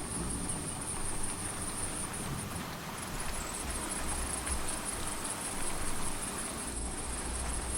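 Steady rain ambience with a high, pulsing chirring of crickets.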